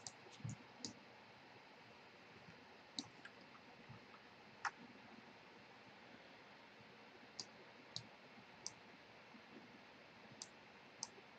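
Faint computer mouse clicks: a dozen or so short, sharp clicks at irregular spacing, some in quick pairs, against near silence.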